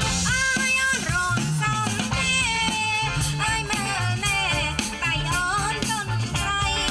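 Up-tempo band music: a singer over a walking bass line, guitar and a drum kit with a steady beat.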